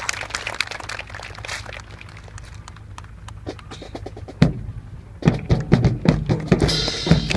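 Scattered sharp clacks and knocks, then a single heavy thump about four and a half seconds in, followed by a louder, denser run of knocks and thumps.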